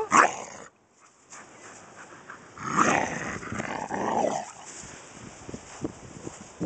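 Large dog growling for about two seconds, starting a couple of seconds in: a warning growl while guarding his ball from the person asking for it.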